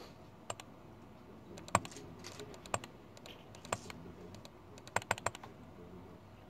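Computer keyboard keys being pressed one at a time, sharp single clicks roughly a second apart, then a quick run of three keystrokes about five seconds in.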